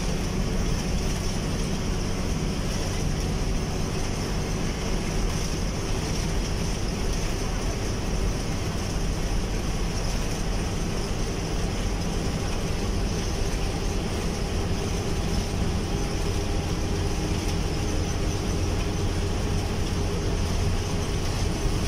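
Steady engine drone and road noise inside the cabin of a bus cruising at a constant speed on a highway.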